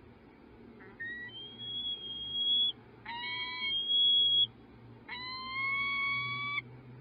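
Peregrine falcon calling: three long, drawn-out calls in a row, each about a second and a half and held at a steady pitch, the last rising slightly at the end.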